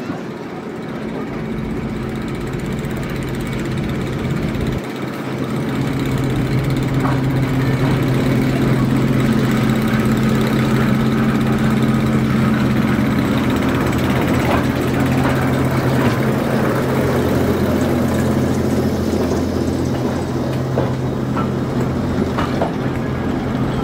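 Class 08 diesel shunter's English Electric six-cylinder engine running with a steady low drone as the locomotive approaches and passes slowly, growing louder about six seconds in. A few short clicks and knocks from the running gear and wheels on the rails sound over it.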